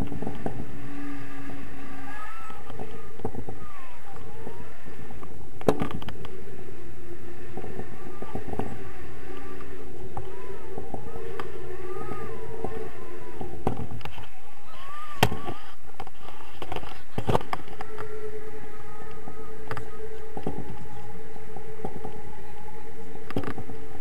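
Wind buffeting a camera microphone in flight under a tandem paraglider: a steady rumbling rush with thin whistling tones that hold and waver. A few sharp knocks come through, about 6, 15 and 17 seconds in.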